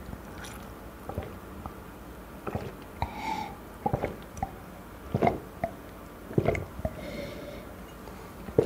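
A person drinking beer from a glass in close-miked gulps: a run of short, wet swallowing clicks, roughly one a second.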